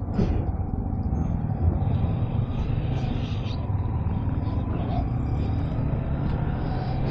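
Steady low rumble of a motorcycle running on the move, with faint steady engine tones above it.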